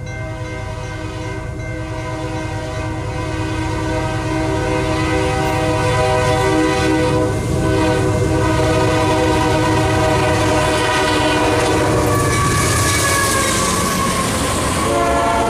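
Horn of a Union Pacific GE AC4400CW freight locomotive sounding for a grade crossing, growing louder as the train comes closer. About twelve seconds in, the horn's pitch drops as the lead locomotives pass close by. The rumble of the locomotives and the clatter of the empty coal cars' wheels then take over.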